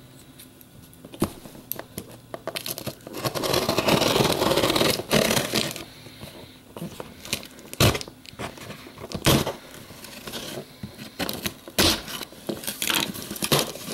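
A small cardboard shipping box being torn open by hand: a long ripping of tape and cardboard a few seconds in, then scattered knocks, scrapes and crinkles as the box is handled.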